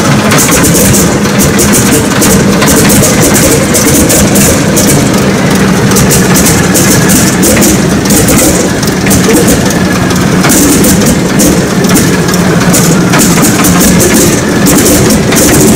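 Antonov An-2's 1,000 hp nine-cylinder ASh-62IR radial engine running steadily and loudly, its fast exhaust beats heard over the propeller.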